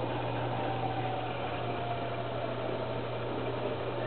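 1941 Bendix Deluxe automatic washer running with its bodywork off: a steady electric motor hum under the whirring of its drive, with a faint tone that slides slowly down in pitch.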